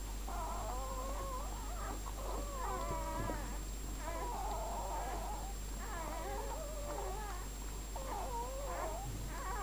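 Newborn puppies squealing and mewing in a run of high, wavering cries, several overlapping at times.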